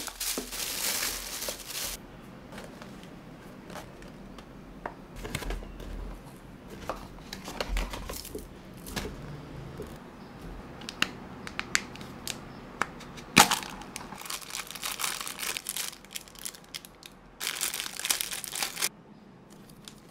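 Plastic packaging being handled: a thin plastic bag crinkling, then scattered rustles, clicks and taps of plastic and paper. One sharp click comes about two-thirds of the way through, and a second burst of crinkling comes near the end.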